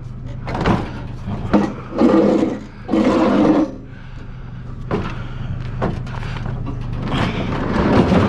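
Knocks, clunks and scraping as scrap is handled and loaded into a pickup truck's bed, over a steady low hum.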